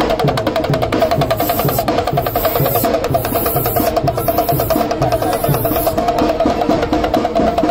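Damru, the small hourglass pellet drum of a street monkey show, rattled rapidly and without a break: a fast, even clatter of many strikes a second.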